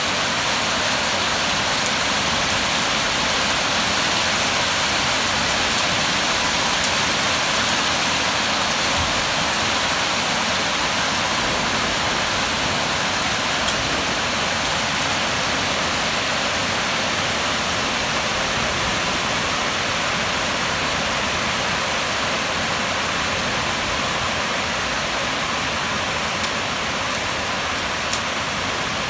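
Steady rain falling during a thunderstorm, an even hiss with a few faint ticks.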